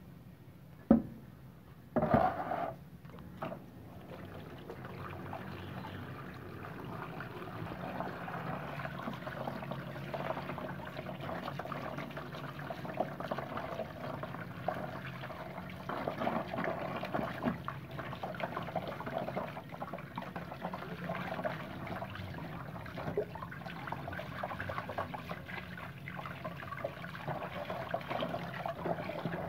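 Water running from a hose over a paintbrush and hands, splashing into a plastic basin as the soap is rinsed out of the bristles. A couple of sharp knocks come in the first two seconds before the water settles into a steady splashing.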